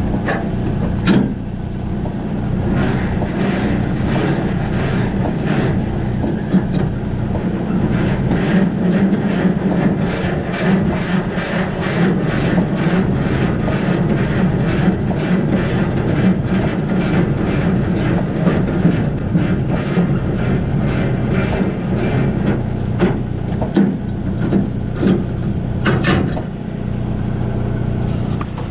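2015 Freightliner Cascadia's diesel engine idling steadily while a semi-trailer's landing gear is cranked by hand, the crank clicking in a regular rhythm, about two to three clicks a second, over the engine's hum.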